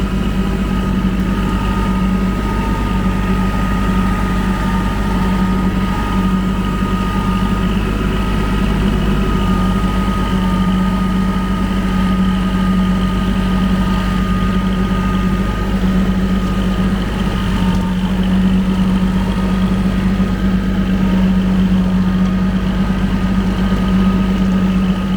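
Kubota L2501 compact tractor's three-cylinder diesel running steadily at PTO speed, driving a rotary brush mower while the tractor creeps along in low range.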